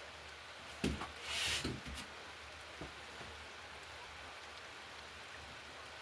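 Steady rain hiss. About a second in come a few sharp knocks and a brief louder rush of hiss.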